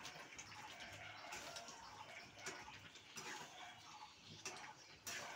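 Faint sizzling of spiced chicken slow-frying in a kadai, with light scraping ticks of the spoon as the pieces are stirred.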